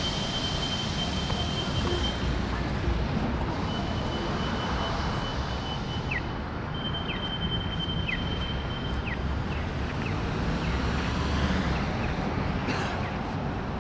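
Downtown street traffic noise with wind buffeting the microphone, steady throughout. Midway, a faint short chirp repeats about once a second from the pedestrian crossing signal at the corner.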